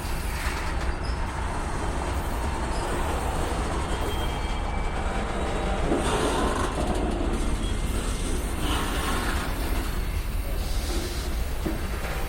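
BNSF freight train rolling along the track, a steady low rumble of wheels on rails.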